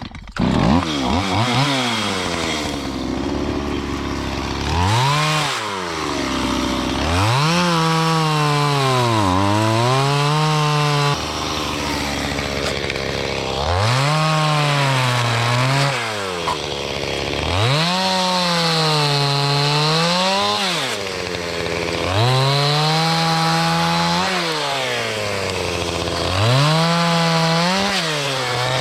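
Stihl chainsaw working through a series of cuts. The engine revs up about six times, its speed sagging under load in each cut, and drops back to idle between cuts.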